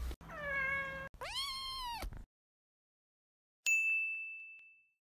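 A cat meowing twice, the first meow falling in pitch and the second rising then falling. After a short silence a single bright ding rings out and fades over about a second.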